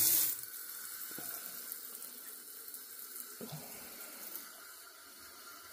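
Kitchen faucet running a steady stream of water into the sink, loudest for a moment at the start and then settling to an even run. There is a single soft knock about three and a half seconds in.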